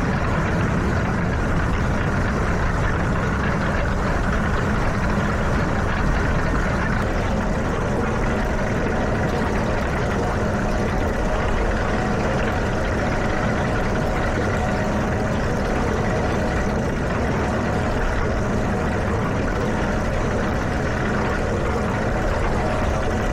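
Farm tractor engine running steadily under even load, with no change in speed.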